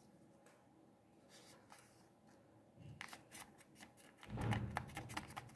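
Origami paper being folded in half by hand: quiet at first, then crisp rustles and crackles of the paper from about three seconds in, with soft low thumps near the end as the fold is pressed down.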